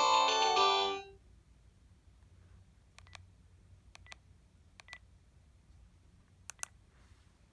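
Panasonic KX-TGH720 cordless phone playing a ringtone melody that cuts off about a second in, followed by four faint double clicks of the handset's keys being pressed.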